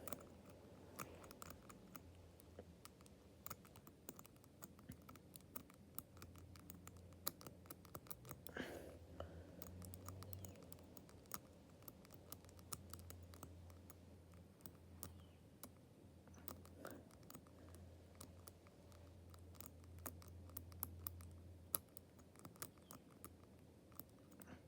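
Number wheels of a combination padlock being turned by hand: many faint, irregular small clicks as the wheels step from digit to digit.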